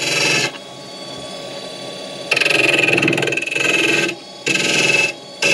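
Wood lathe running while a turning chisel cuts into the spinning wood blank in repeated passes, each cut a loud stretch of scraping noise lasting a second or two, with the quieter hum of the running lathe in between.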